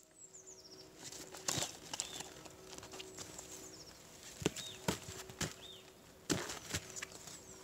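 A dog's paws thudding and crunching in snow on a trampoline mat: a handful of irregular steps and hops, the loudest about halfway through and again near the end. Small birds chirp faintly in between.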